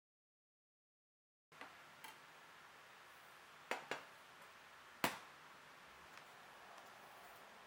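Small metal drill bits clicking against the magnetic bit holder: a few short, sharp clicks, including a close pair and one louder click about five seconds in, over faint room hiss.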